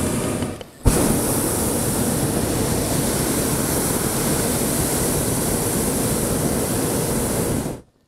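Hot-air balloon propane burner firing, a steady loud roar. It drops out briefly about half a second in, comes back on with a sharp click, and runs for about seven seconds before cutting off abruptly.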